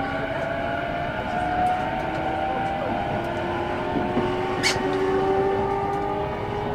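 Inside the passenger car of an E233-6000 series electric train accelerating: the traction motors' whine rises slowly in pitch over the running noise of wheels on rail. A single sharp click about four and a half seconds in.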